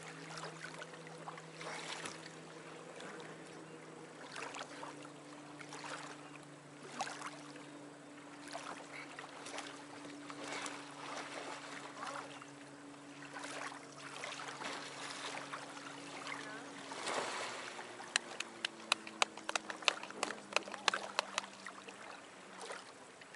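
Water splashing and sloshing as a swimmer hauls himself onto an Old Town Predator 13 plastic kayak and climbs back aboard after a capsize, with a quick run of sharp knocks and clicks about three-quarters of the way through. A steady low hum runs underneath.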